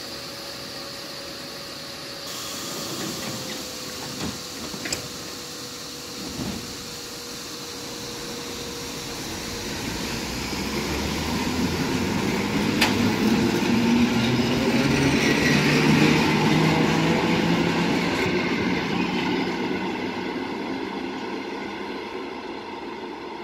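Polregio electric multiple unit pulling out of the station. Its traction motors hum and rise in pitch as it gathers speed, and the rumble of the train swells to a peak about two-thirds of the way through, then fades as it moves off.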